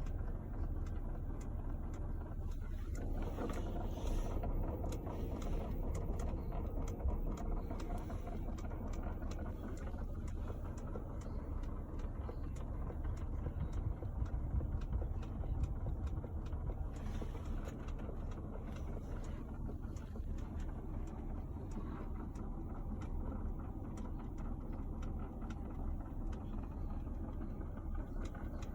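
Irregular light clicking and rattling from a 2017 Chrysler Pacifica's dashboard, heard inside the cabin over a steady low rumble of the moving van.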